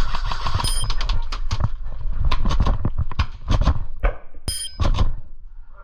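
Airsoft guns firing during a game: a rapid, uneven run of sharp snapping shots that thins out near the end, with two brief metallic pings, one about a second in and one about four and a half seconds in.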